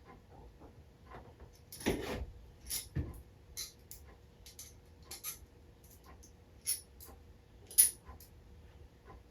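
Small metal engine parts clinking and tapping as they are handled and fitted. There are about a dozen irregular light strikes, with a heavier knock about two seconds in and the sharpest clink near the end.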